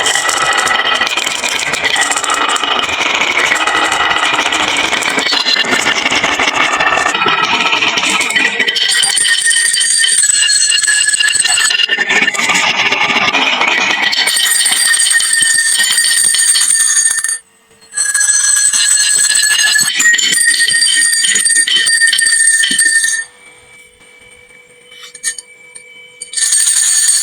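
Many glass marbles clattering and rolling down a wooden marble run into toy trucks, a dense continuous rattle with steady ringing tones over it. It breaks off abruptly once, stops near the end, and returns as a short burst.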